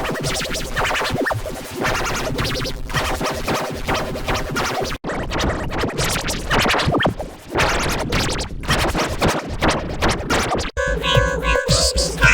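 A children's car song run through heavy distortion effects, chopped into rapid stuttering fragments, with abrupt cuts about 5 seconds and 11 seconds in.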